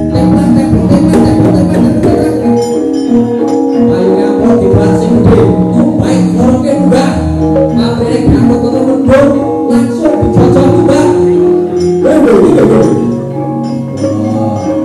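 Javanese gamelan playing, with ringing metallophone notes and sharp metallic clacks marking the beat.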